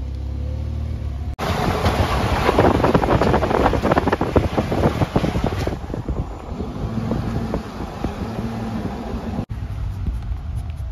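Wind buffeting the microphone, with road noise from a moving car; it starts suddenly about a second in and stops abruptly near the end.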